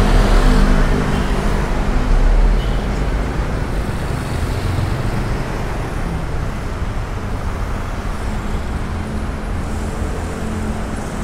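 City street traffic: a steady wash of passing cars and motorbikes. A nearby engine's low running note is loudest for the first couple of seconds.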